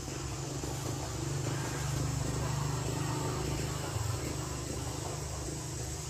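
Outdoor ambience: a low steady rumble that swells through the middle and eases off again, under a steady high-pitched insect drone.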